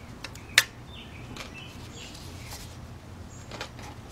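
Oil dipstick tube being worked into its bore in the engine: light knocks and scrapes of metal parts being handled, with one sharp click about half a second in.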